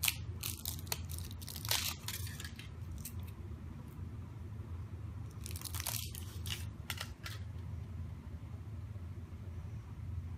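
Aluminium foil wrapper of a Kinder Surprise chocolate egg crinkling and tearing as it is peeled off by hand, in several short bursts over a steady low hum.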